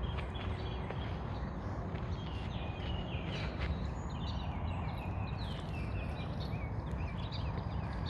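Small birds chirping in many short, quick notes, often falling in pitch, over a steady low rumble.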